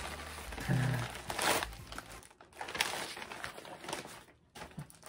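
Plastic doll-accessory packaging crinkling and rustling in irregular handfuls as it is handled. A short hummed vocal sound comes about a second in.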